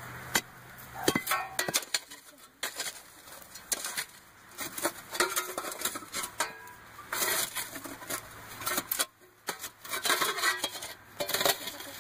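Irregular rustles and clicks of dry milkweed stems and leaves being handled close by.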